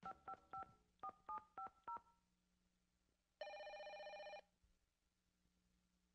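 A telephone's touch-tone keypad being dialled: seven short two-tone beeps with button clicks, three and then four in quick succession. Then a telephone ring tone sounds once for about a second.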